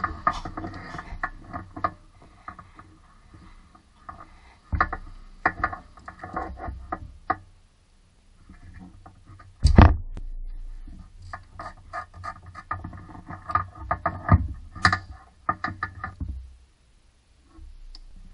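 Hand ratchet wrench clicking in quick runs of strokes as it turns a bolt, with a single loud metallic knock about ten seconds in.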